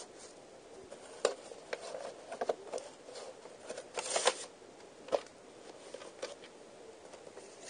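Light clicks and taps of a VHS tape case and its paper pamphlet being handled, with a brief papery rustle about four seconds in.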